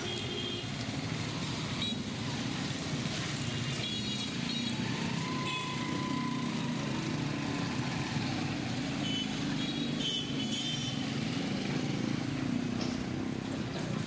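City street ambience: a steady rumble of road traffic. Short high chirps come through several times, and a thin high tone is held for about a second and a half about five seconds in.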